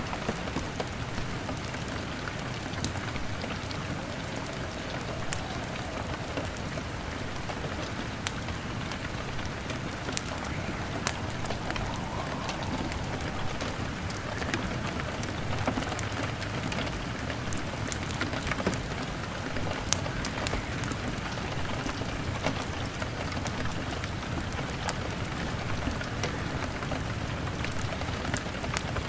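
Steady rain pattering on a window, mixed with a crackling log fire: an even hiss of rain with sharp little pops and clicks scattered throughout.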